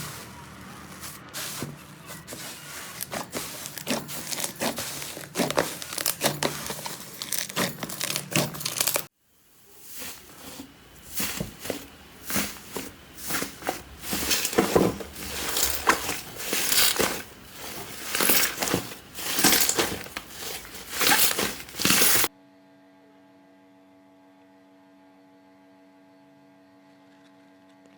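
Slime being squeezed and pressed by hand, crackling and crinkling: a dense crackle for the first nine seconds, then after a brief gap loud crunchy squishes about once a second. After about 22 seconds only a faint steady hum remains.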